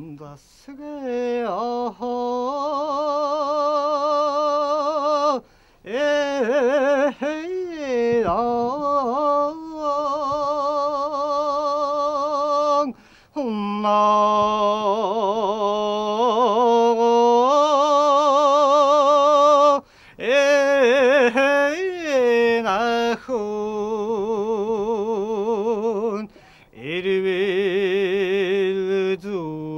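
A man singing alone without accompaniment: long held notes with heavy, wavering vibrato and sliding ornaments, in long phrases broken by brief breath pauses.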